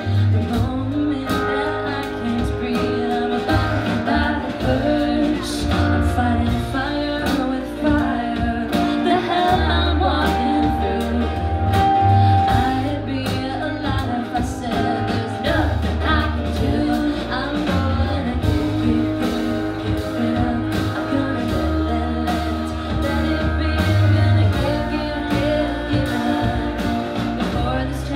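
Live band playing a song: two women singing, with acoustic guitars, electric bass and a keyboard, the bass pulsing steadily underneath.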